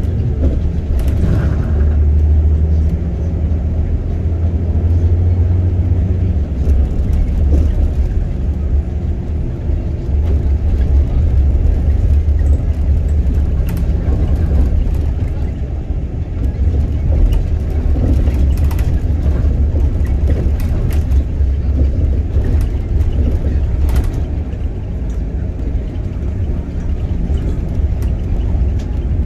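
Steady low rumble of a road vehicle driving through city traffic.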